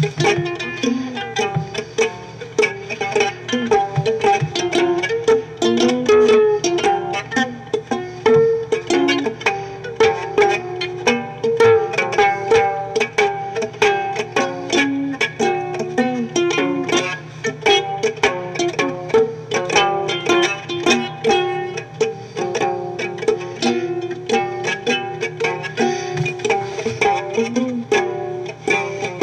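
Instrumental music: quick plucked-string notes over a steady low drone.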